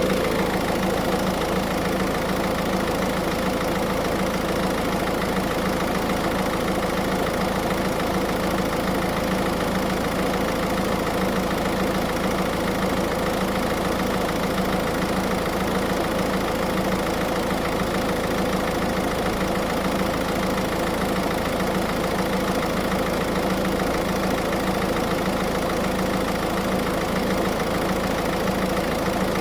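Car engine idling steadily, with the air-conditioning compressor engaged and running.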